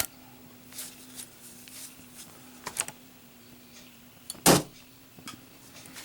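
Zippo lighter with a steel insert being handled for a drop test: light metallic clicks, then one loud sharp clack about four and a half seconds in and a smaller one shortly after.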